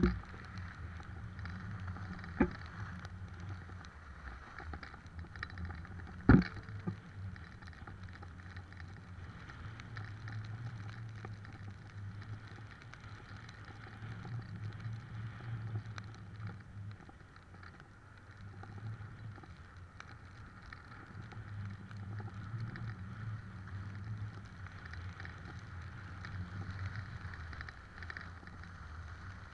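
Skis sliding over groomed snow during a run, a steady rushing scrape with wind on the microphone, broken by a couple of sharp knocks in the first several seconds.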